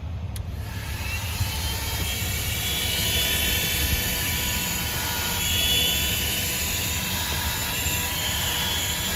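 THISWORX 12V corded handheld car vacuum switching on with a click about half a second in, then running with a steady motor whine and rush of air, its pitch wavering slightly as the crevice tool sucks up sand.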